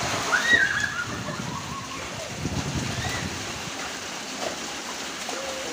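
Heavy rain pouring onto a flooded concrete rooftop: a steady hiss of falling water and splashing. A brief high voice cuts through about half a second in.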